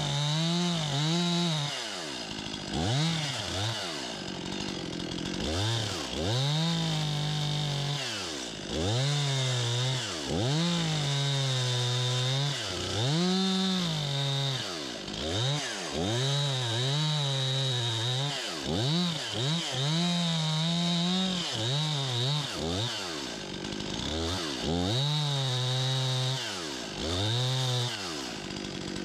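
Stihl MS 261 C-M two-stroke chainsaw revving up and dropping back to idle over and over in short bursts. It is nibbling relief cuts into the back of an ice-bent birch spring pole to release its tension.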